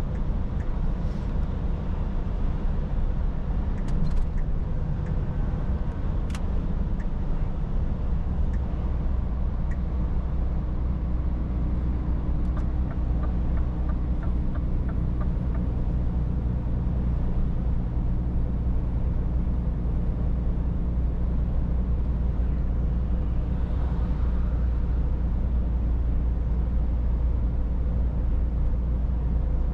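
Scania S450 truck's six-cylinder diesel engine and road noise heard inside the cab while driving: a steady low drone that grows stronger about eight seconds in.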